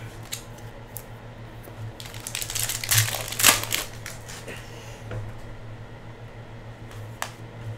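Foil trading-card pack wrapper crinkling loudly as it is opened, mostly between two and four seconds in, then a few light clicks and rustles as the cards are handled, over a low steady hum.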